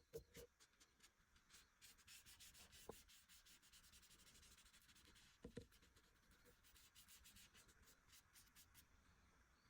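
Faint hand sanding of the sickle's handle: sandpaper rubbing in rapid back-and-forth strokes, with a few light knocks.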